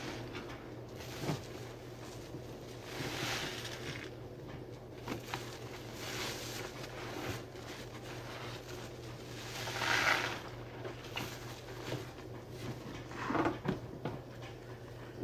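A sponge soaked in dish-soap suds being squeezed by hand, four times, each squeeze a short wet, fizzing hiss of suds. The squeeze about two-thirds of the way through is the loudest. Small clicks fall between the squeezes.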